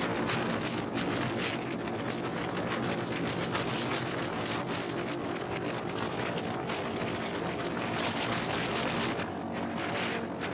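Motorcycle engine running steadily at cruising speed, with heavy wind rushing over the microphone.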